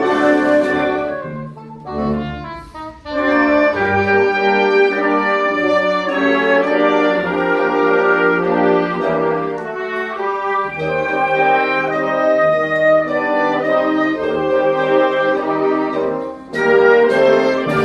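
Symphonic wind band playing slow sustained chords, brass to the fore. The sound thins and drops away between about one and three seconds in, then the full band swells back in; a short dip near the end is followed by a loud entry.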